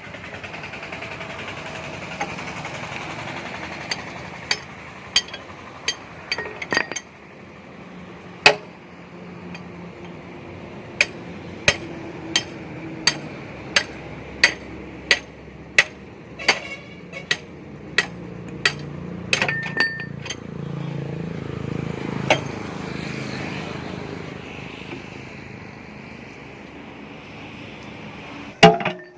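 A backhoe loader's engine running steadily, with about twenty sharp metallic clanks at irregular intervals. One loud clank comes about a third of the way in and another near the end.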